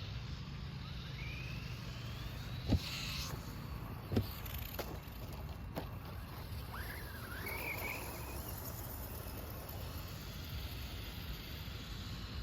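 Electric motors of small RC monster trucks whining as they speed up, over a low steady rumble, with three or four sharp knocks from landings or impacts, the loudest about three seconds in.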